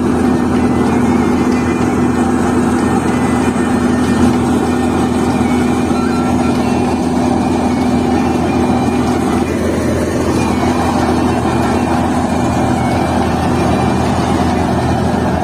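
Tractor-driven threshing machine running steadily while threshing mustard: a constant loud mechanical drone with a steady hum.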